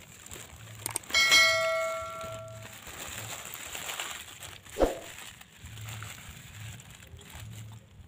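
A single bell-like chime about a second in, ringing with several clear tones and fading over about a second and a half: the notification-bell sound effect of a YouTube subscribe-button animation. A sharp knock near five seconds in.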